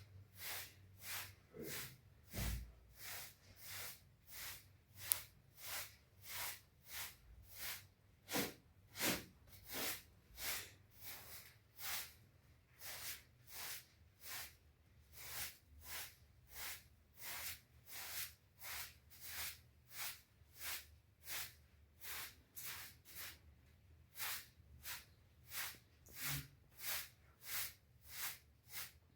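Short crunching, swishing strokes repeating in a steady rhythm of about two a second, as of footsteps or sweeping in snow.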